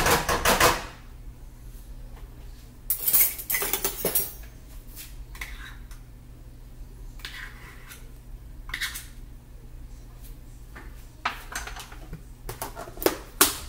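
A spoon clinking and scraping against a measuring cup and a frying pan as butter is scooped into the pan, in scattered bursts of clatter, the loudest at the start, about three seconds in and near the end.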